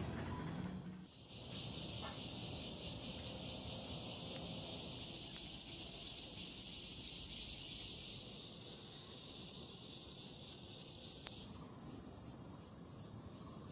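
Loud chorus of cicadas: a steady, high-pitched buzz that dips briefly about a second in and then carries on unbroken.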